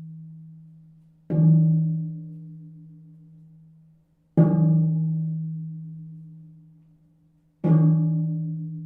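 A deep-pitched percussion instrument struck three times at about three-second intervals, each stroke ringing on with a low tone and fading away with a slight wobble before the next.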